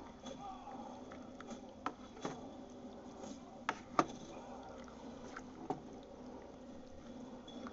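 Slices of hot chouriço sausage frying in a pot, with a steady sizzle and a few sharp clicks of a spoon against the pot, the loudest about four seconds in.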